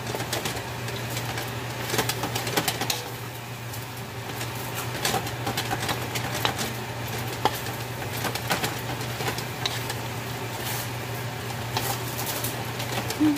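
A spatula scraping and clacking against a wok as pork and julienned carrots are stir-fried and sizzle, with a steady low hum underneath.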